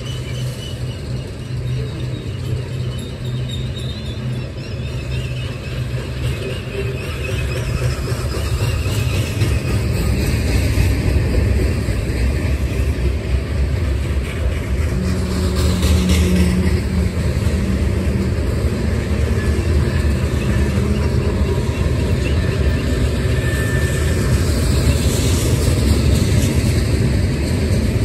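Freight train of tank cars and covered hoppers rolling past close by: a steady rumble of steel wheels on rail that grows louder about a third of the way in. There is a faint high wheel squeal in the first few seconds.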